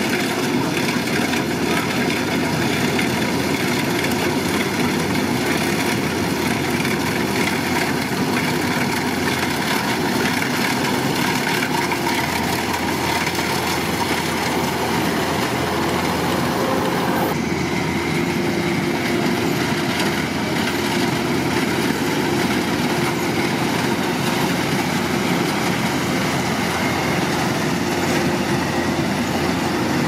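Kubota DC-105X combine harvester running close by, its diesel engine and machinery making a steady, dense mechanical noise. The tone changes abruptly about 17 seconds in.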